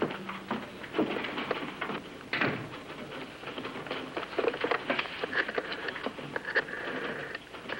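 Office typewriters clattering: rapid, irregular keystrokes.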